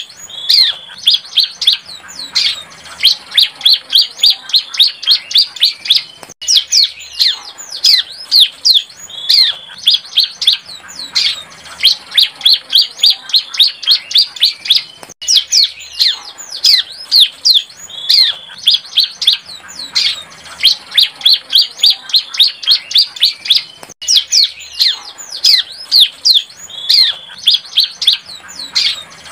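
Bar-winged prinia (ciblek) singing: a young bird's song of rapid, sharp high chirps, with quick downward-sweeping notes mixed with fast trilled runs. The same phrase repeats in near-identical stretches about every nine seconds.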